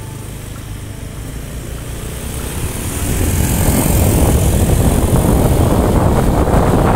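Motorcycle on the move: the engine running under wind rushing over the microphone, getting louder about three seconds in as the noise spreads from a low rumble to a full rush.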